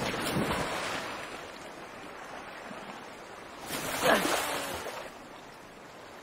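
Heavy water splashing and surging that dies away, then swells again about four seconds in with a short shout, before fading to a low wash.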